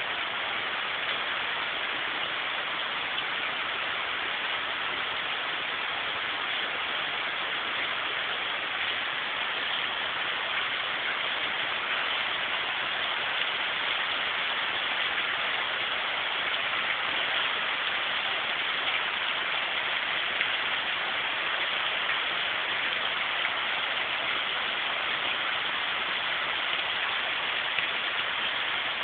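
Steady rain falling, an even hiss that keeps up without let-up.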